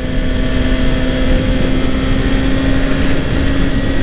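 Honda CBR650R's inline-four engine running at a steady cruising pitch at highway speed, over a low rumble of wind and road noise.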